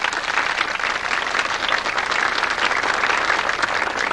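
Crowd applauding, a dense, even clatter of many hands clapping.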